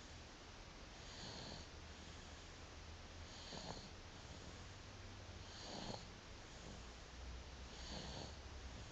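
A sleeping baby snoring softly: four breathy snores, one every two seconds or so, evenly paced.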